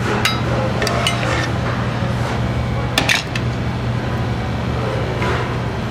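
Plating clatter: a few sharp clinks of metal and dishware against a plate, the loudest about three seconds in, over a steady low kitchen hum.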